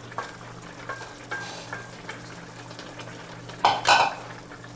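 Utensil stirring and scraping in a pan of sizzling food, with scattered clicks and a louder scrape near the end.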